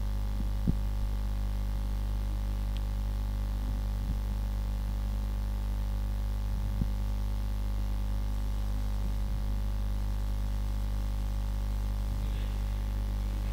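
Steady electrical mains hum with its overtones in the audio line, broken by a few faint clicks.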